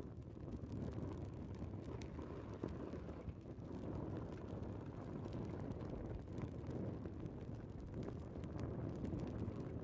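Steady low rumbling noise with faint scattered clicks and crackles running through it; no music and no voice.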